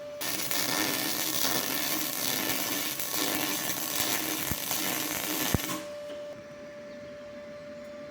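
Welding arc sizzling steadily as steel spokes are welded into a wheel rim, running for about five and a half seconds and cutting off abruptly.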